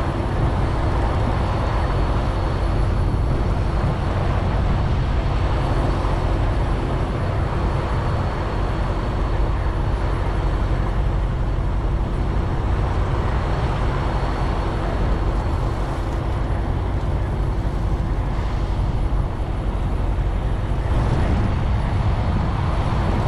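Steady rumble and hiss of highway traffic, a continuous wash of passing vehicles that does not break.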